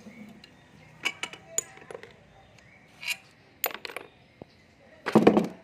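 Metal clinking and tapping as a ratchet wrench and the freshly removed oil pickup pipe are handled, a few sharp clinks at a time. A louder, rattling metal clatter comes near the end.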